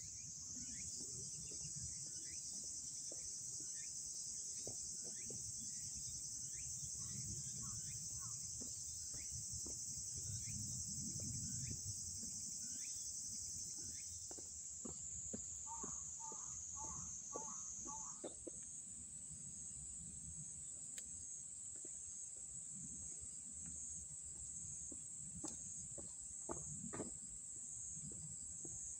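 Steady high-pitched chorus of summer insects over low outdoor rumble, with scattered short bird chirps and, about halfway through, a bird calling five quick notes in a row. A few sharp taps come near the end.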